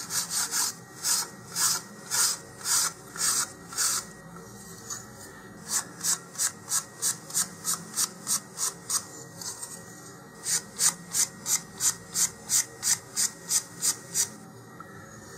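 Fine sandpaper on a sanding block rubbed in short back-and-forth strokes along the edge of a wooden model rocket fin, rounding the edge off. The strokes come in three runs with short pauses between, about two a second at first and quicker in the last run.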